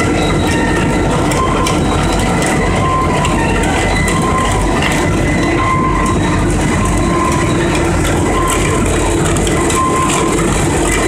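Biomass sawdust pellet production line running: a loud, steady machine noise with a dense clatter of wood pellets pouring into the bin, and a short tone that recurs every second or so.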